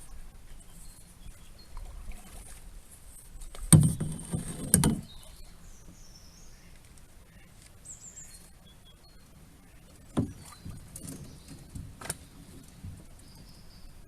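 Small sailboat being manoeuvred on a lake, with a few loud knocks and bumps against the hull about four to five seconds in and lighter ones later.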